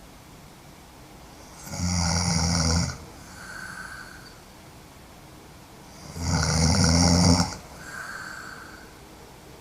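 A woman snoring hard in her sleep: two loud snores, each just over a second long and about four seconds apart, each followed by a softer breath.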